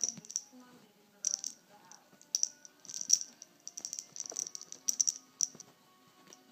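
A cat toy rattling in irregular bursts of short, sharp shakes as a kitten bats and kicks at it, loudest about three seconds in.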